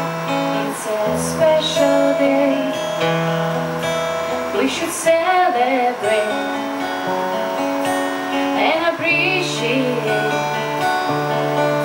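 Live acoustic guitar chords with a woman singing into a microphone, heard through the stage sound system; her voice comes in short phrases, most plainly about five and nine seconds in.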